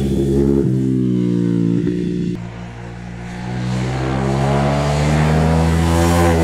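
Ducati Hypermotard 821cc Testastretta L-twin engine revving hard: the pitch drops in steps during the first two seconds as it shifts down and eases off, goes quieter briefly a little before the middle, then climbs steadily in pitch and loudness as the throttle is opened again.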